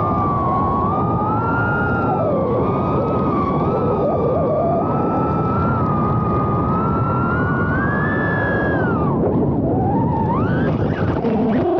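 FPV quadcopter's motors whining as heard from the onboard camera, the pitch wandering up and down with the throttle over a steady rush of noise. Near the end the whine dips away and then climbs sharply again.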